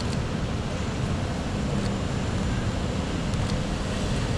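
Heavy rain falling steadily on a city street, a constant hiss, with a low rumble of traffic underneath.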